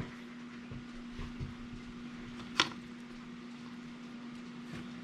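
A steady low hum with one sharp click about two and a half seconds in, as the two pieces of a clamshell pistol light rail are handled.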